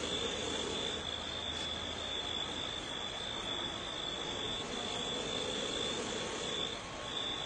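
Night insects, likely crickets, trilling: one steady high-pitched tone broken by short gaps about once a second, over a faint even rushing noise.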